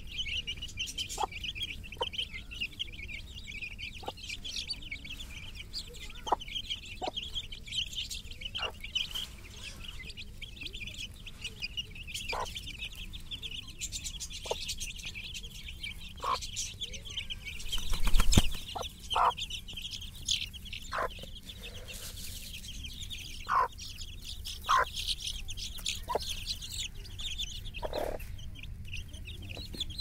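A flock of twenty-day-old country chicken chicks peeping continuously in a high, dense chatter while pecking at the ground, with scattered short, sharp sounds lower down. About eighteen seconds in comes a brief loud thump and rumble.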